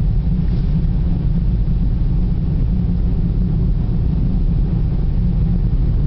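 Steady low rumble of a car's tyres and engine, heard from inside the cabin while driving on a snowy road.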